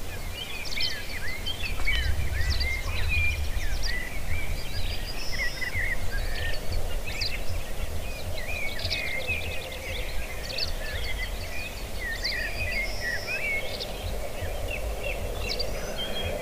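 Black grouse lekking: a low, steady bubbling chorus that grows stronger about halfway through, under many short chirps and whistles from birds calling throughout, with a low rumble beneath.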